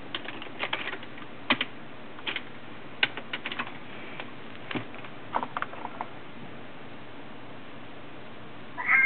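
Computer keyboard typing: scattered key clicks in short runs over the first six seconds, then stillness. A cat gives a short meow right at the end.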